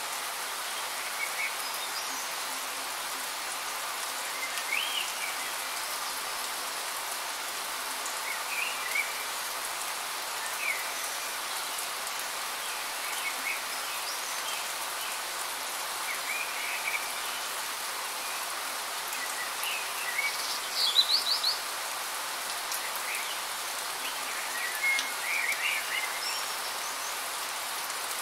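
Steady rain falling, an even hiss, with short chirps scattered through it. The loudest is a quick run of chirps about twenty seconds in.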